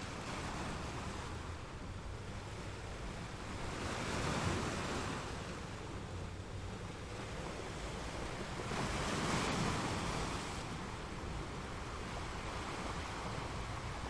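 Ocean surf: a steady wash of breaking waves, with two bigger waves crashing, about four seconds in and again near ten seconds. Wind rumbles on the microphone underneath.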